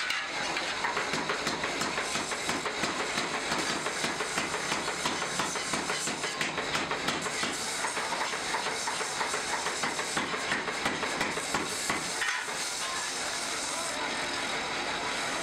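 Belt-driven grinder running with a steel meat cleaver blade held against it, a steady rasping grind that rises and falls as the blade is worked; about twelve seconds in it dips briefly and then runs more evenly as the wooden handle is sanded.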